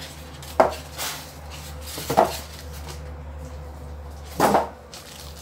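Metal motorcycle exhaust parts knocking and clinking as they are handled, three separate knocks with the last the longest.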